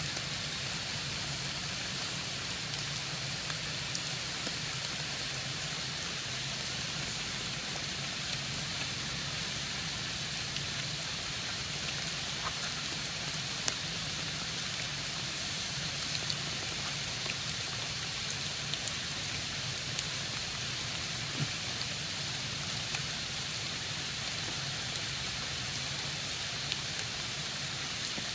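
Steady rain falling on rocks and foliage: an even hiss, with a few sharp ticks scattered through it.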